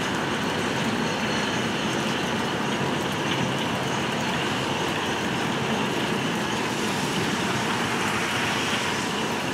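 Rail train of small dollies carrying quarter-mile strings of welded ribbon rail rolling steadily past, an even noise mixed with falling rain.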